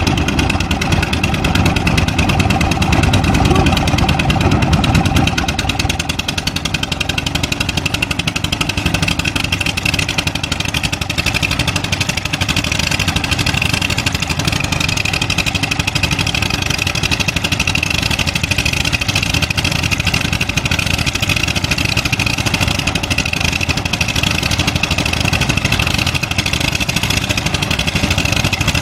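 Kobelco SK200 excavator's diesel engine running under work, heavier and louder for the first six seconds or so, then running steadily.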